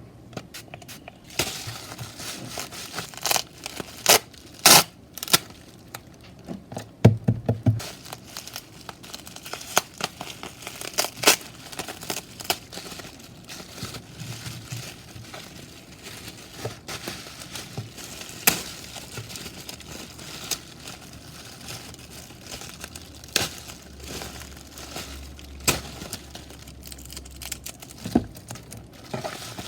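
Packaging being crinkled and torn open during an unboxing, with irregular sharp clicks and crackles, loudest a few seconds in.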